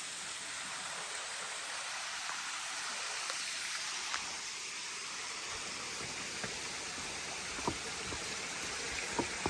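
A steady hiss like running water, with a few faint ticks.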